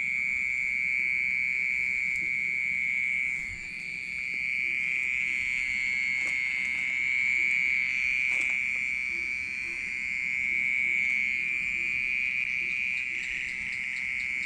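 A hidden insect in a flower pot making a loud, unbroken, high-pitched ringing buzz that holds one steady pitch and swells and fades slightly.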